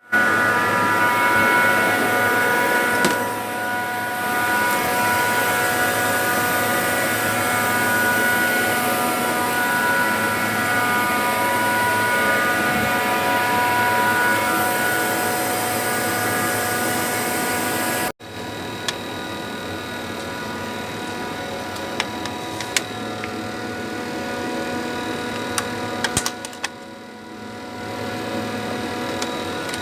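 Trane air-cooled chiller's screw compressor running, a steady mechanical drone with a high whine of several held tones. About 18 seconds in it cuts off abruptly and resumes quieter, with a few sharp clicks.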